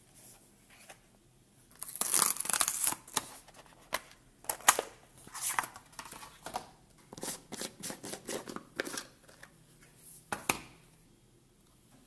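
Cardboard box and paper insert being opened and unpacked by hand: rustling and scraping of card and paper, loudest in a dense stretch about two seconds in, with scattered sharp taps and clicks of the clear plastic case being handled.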